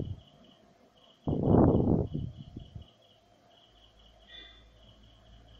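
A cricket chirping faintly and steadily, a thin high tone in rapid pulses that come in runs. About a second in, a louder noise like a breath or rustle lasts over a second and fades.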